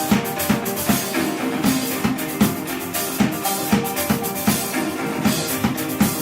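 Live band playing, the drum kit keeping a fast, steady beat of bass drum and snare under sustained instruments.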